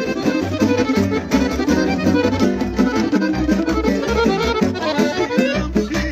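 Live Balkan band music: an upright double bass plucked in a steady low beat under a quick, busy melody line.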